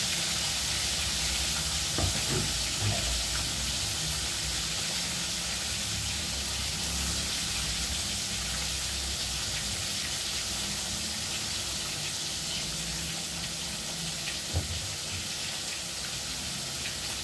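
Oil sizzling steadily in a wok over a charcoal stove, with a few sharp knocks: the loudest about two seconds in and another near the end.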